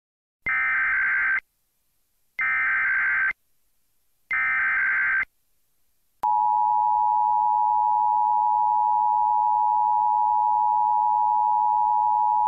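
Emulated Emergency Alert System alert: three bursts of SAME header data, each about a second long and about a second apart, followed about six seconds in by the steady two-tone EAS attention signal.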